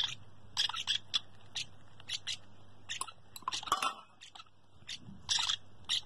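Young parrot chicks begging at the feeding spoon: a quick, irregular series of short, high-pitched, raspy chirps, mixed with small wet feeding sounds.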